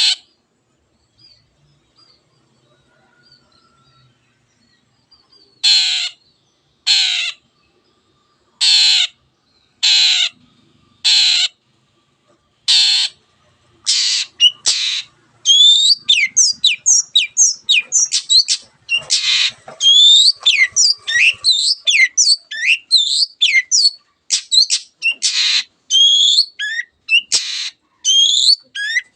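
Long-tailed shrike (cendet) giving a string of harsh, raspy calls a second or two apart, then about halfway through breaking into a fast, varied song of sweeping notes.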